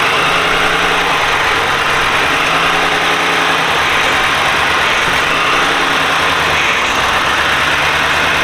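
Lifted Ford Super Duty pickup's engine running at low revs as the truck crawls up steel ramps onto a trailer. The engine note comes and goes in several short stretches with the throttle, over a loud steady hiss.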